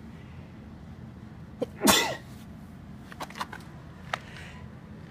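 A single short, sharp burst about two seconds in, like a sneeze, over a steady low hum. A few faint clicks follow.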